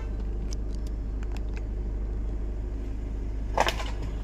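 Steady low rumble of a car running, heard from inside the cabin, with a few faint clicks in the first second and a half and one short, sharper noise about three and a half seconds in.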